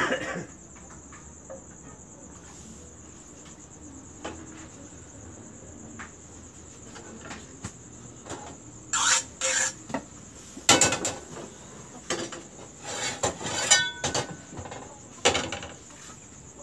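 Frying pans, a batter pot and a ladle knocking and clattering as pancake batter is ladled and the pans are handled on a gas stove, in a run of sharp knocks through the second half, one with a brief metallic ring. Underneath, a steady high chirring of insects such as crickets.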